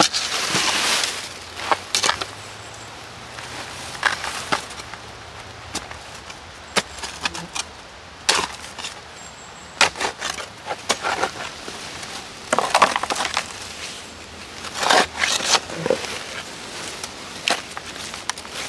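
Gravel and clay being dug from a creek bank with a hand tool and scooped into a plastic gold pan: irregular scrapes and crunches of soil and stones.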